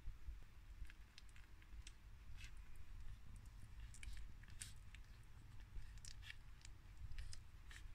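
Newborn Boston Terrier puppies suckling at their mother's teats: faint, irregular wet smacking clicks over a low rumble.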